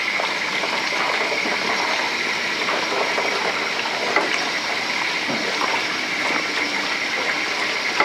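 Water rushing steadily, an even hiss that cuts off suddenly at the end.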